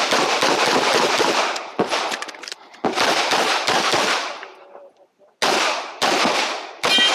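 Glock 17 9 mm pistol fired in a practical shooting stage: a string of loud shots at irregular intervals, some in quick pairs, each followed by a ringing echo.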